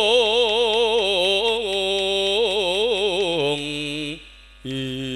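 A man singing a Javanese verse solo into a microphone with no accompaniment. He holds long notes with a wide vibrato, steps down in pitch, and takes a short breath about four seconds in before starting a new held note.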